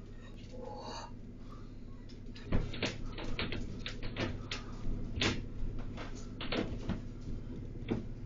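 Steady low electrical hum with a run of irregular sharp clicks and knocks starting about two and a half seconds in, the first one the loudest.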